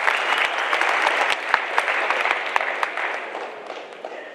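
Audience of high school students applauding, the clapping thinning out and fading away near the end.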